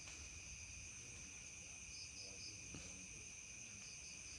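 Faint, steady, high-pitched insect chirring, with a few faint pulsed chirps about two seconds in.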